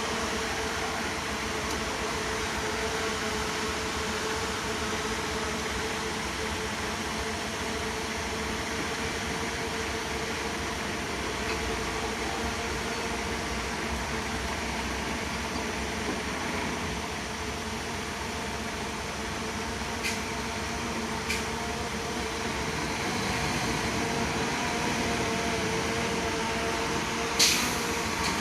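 A heavy earthmoving machine's diesel engine running steadily, with a few sharp knocks in the last several seconds, the loudest near the end.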